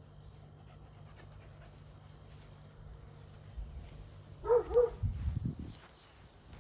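A small dog barks twice in quick succession, about four and a half seconds in, while attacking a snake, followed by a brief low rumble.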